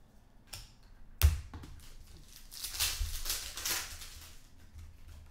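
A sharp knock on the table about a second in, then crinkling and tearing of a foil trading-card pack wrapper, a 2013-14 Panini Contenders hockey pack, being ripped open by hand.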